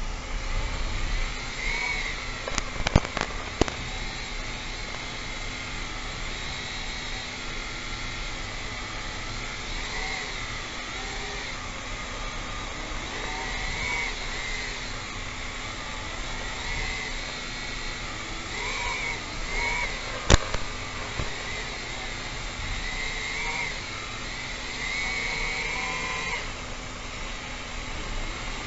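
FPV quadcopter's electric motors whining over a steady rush of air noise, the pitch rising and falling as the throttle changes. A few sharp clicks come about three seconds in, and a louder one about two-thirds of the way through.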